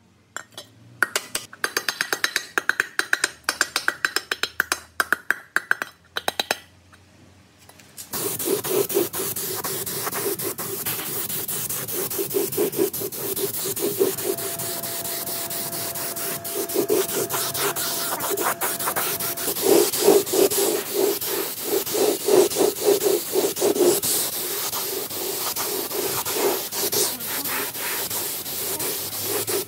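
Quick rubbing or scraping strokes for about eight seconds, then a compressed-air spray gun hissing steadily as it sprays paint onto the sheet-metal engine housing.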